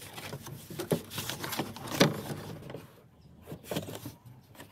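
Plastic underbody cover being pushed up into place under the car: scraping, with several knocks, the sharpest about two seconds in, then a few lighter taps.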